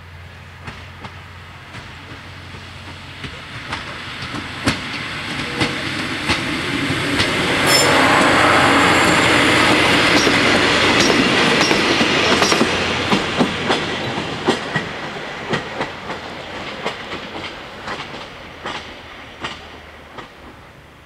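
MÁV-START diesel railcar train passing over a level crossing. Its running noise swells to a peak from about eight to twelve seconds in, then fades away, with the wheels clicking over the rail joints throughout.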